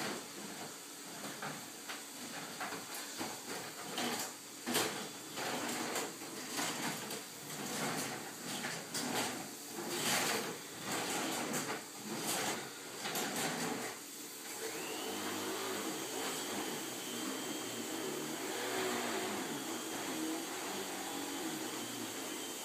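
Scattered clicks and knocks of handling tools and small parts, then, from about fifteen seconds in, a steady electric hum from a soldering gun used to reflow the solder joints on the clock's circuit board.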